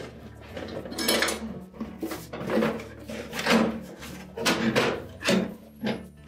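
Plastic refrigerator ice bin and its metal end bracket being handled and tipped over on a bench: a string of short knocks, scrapes and rattles, roughly one every half second to a second.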